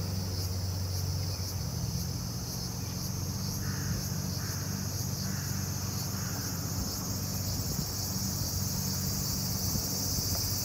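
Steady, high-pitched chorus of insects, with a bird calling four short falling calls in a row a few seconds in, over a low steady hum.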